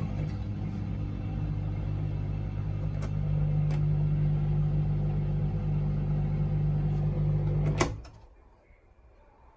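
Bosch SGS dishwasher's drain pump running with a steady hum as it pumps the water out on the drain-out programme, then stopping suddenly with a click about eight seconds in.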